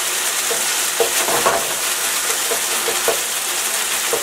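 Marinated chicken pieces sizzling in hot oil in a wok at high heat as they brown. The steady hiss of frying is broken by a few short knocks of the stirring utensil against the wok.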